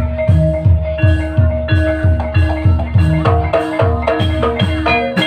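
Javanese gamelan-style music accompanying an ebeg dance: regular drum strokes about three a second under a sustained tone and a melody on tuned mallet percussion. The music stops abruptly near the end.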